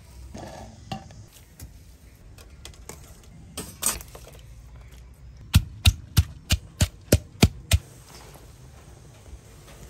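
A run of eight sharp knocks in quick succession, about three a second, after a few scattered clicks and two louder knocks.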